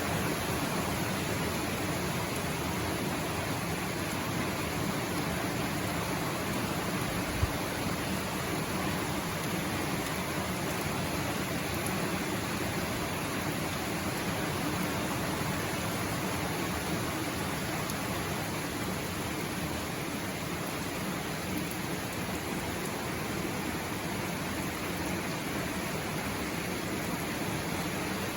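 Steady rainfall, an even hiss that holds without a break, with one brief tap a little past seven seconds in.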